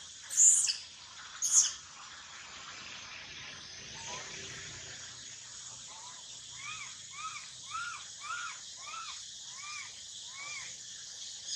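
Two loud, sharp high-pitched calls, each falling in pitch, about half a second and a second and a half in. From about six seconds, a run of eight short rising-then-falling call notes follows at about two a second, over a steady high hiss.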